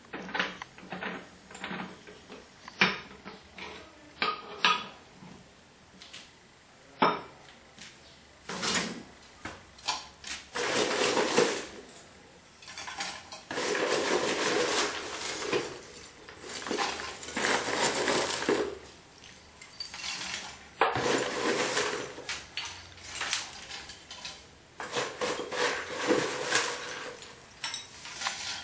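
Metal clanking and clatter at the top of a homemade steel-drum wood gasifier burner as it is opened and loaded with wood. Sharp knocks come first, then several rattling spells of a couple of seconds each.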